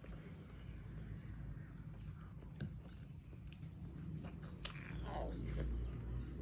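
Faint chewing and mouth sounds of someone eating meatball noodle soup, with a bird chirping in the background: short rising chirps, about one a second.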